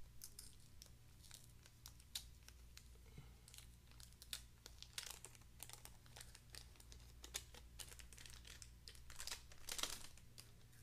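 Faint crinkling and crackling of a clear plastic antistatic bag as it is peeled open and a 2.5-inch SSD is slid out, with louder rustles about halfway through and again near the end.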